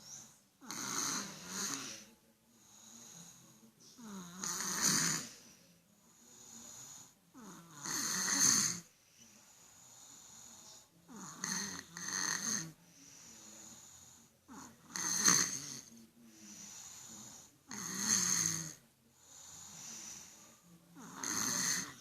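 A sleeping child snoring in a slow, regular rhythm: a loud snore about every three and a half seconds, about seven in all, with quieter breaths between them.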